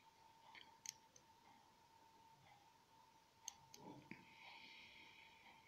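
Faint, sparse metallic clicks of a dimple lock pick working the pins of a 7-pin Mul-T-Lock cylinder, pins setting one by one during single-pin picking. There is one click about a second in and a couple more around three and a half seconds in, with a faint steady high whine in the background.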